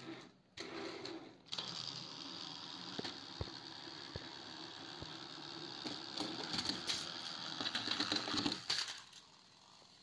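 Battery-powered Thomas & Friends toy train's small electric motor and gearbox whirring steadily as it runs on plastic track, with small clicks. It starts about a second and a half in, gets louder, and stops about nine seconds in.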